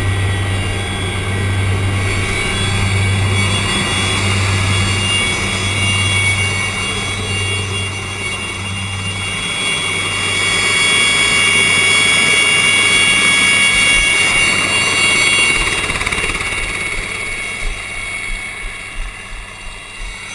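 Aérospatiale SA 315B Lama helicopter running on the ground: the steady high whine of its Turbomeca Artouste turboshaft over the low beat of the turning rotor. The beat pulses for the first half, then evens out.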